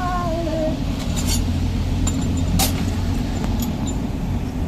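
A vehicle engine running steadily with a low rumble, with a few sharp metallic clinks over it.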